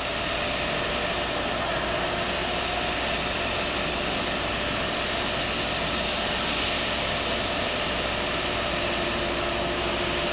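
YLM YL280CA circular-saw cutting machine running, a steady even whirring noise with faint steady tones under it.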